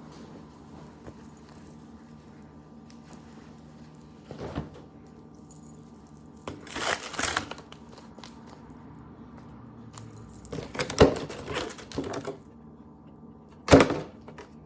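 Handling noises: several short bouts of rustling with jangling metallic clinks, the loudest a sharp clack near the end, over a steady low room hum.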